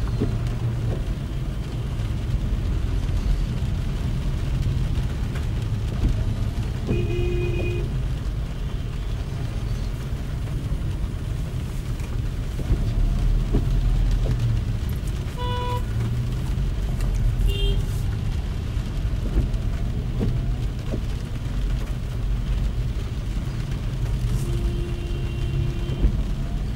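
Car driving in traffic: a steady low rumble of engine and road noise, with short horn beeps from traffic about four times.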